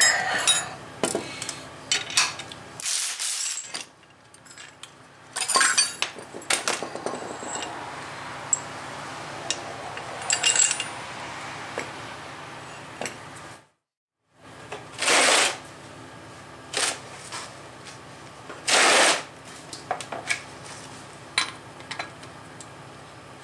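Steel sockets and other metal tools clinking and clanking as they are picked up and set down on a concrete floor, with a few short scraping or rattling bursts.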